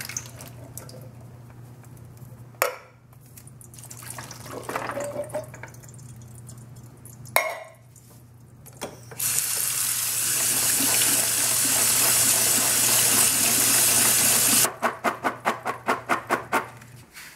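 Canned chickpeas emptied into a plastic colander in a sink, with a couple of sharp knocks from the can and a splash of liquid, then rinsed under a running kitchen tap for about five seconds. Near the end the wet colander is shaken quickly to drain, about four shakes a second.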